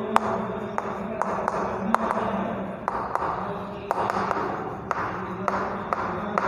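Chalk writing on a blackboard: scratchy strokes with frequent sharp taps as the chalk strikes the board, over a low steady hum.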